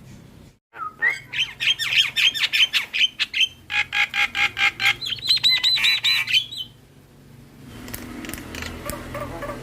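Javan myna (jalak kebo) singing in fast runs of repeated harsh, squawky notes, with a string of higher ringing notes about five seconds in, then going quieter near the end.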